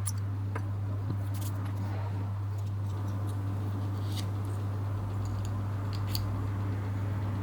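Scattered light clicks and taps of small parts being handled, over a steady low hum.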